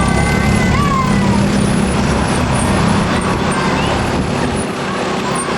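A bus's Basuri multi-tone telolet horn holding several notes at once over the low running of its diesel engine, cutting off after about a second and a half. The engine and road noise carry on, and the engine rumble drops away near the end.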